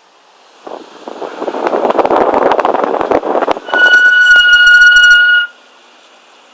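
An M5's brakes grabbing as the car slows: a rough scraping rush builds for about three seconds, then turns into a steady high-pitched squeal for about two seconds that cuts off suddenly as the car stops.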